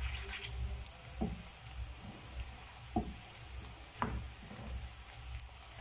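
Finely chopped onion sizzling in hot oil in a wok as it softens, stirred with a metal spoon that scrapes the pan three times. A steady low hum runs underneath.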